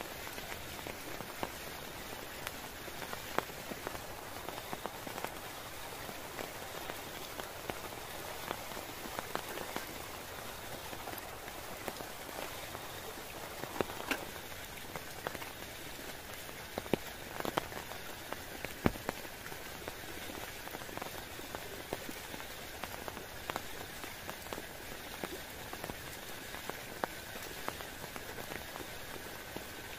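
Steady rain falling, with many scattered sharp drops tapping close by.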